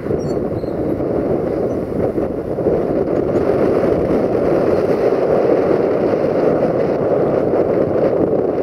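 Electroputere LDE2100 (CFR 060-DA) diesel-electric locomotive's Sulzer diesel engine running steadily as it hauls an intermodal container train, a dense, even drone.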